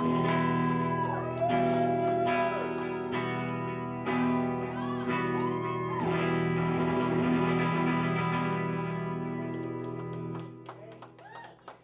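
Electric guitar played live: sustained chords with single lead notes bent up and down over them, the final chord fading away about ten and a half seconds in as the song ends.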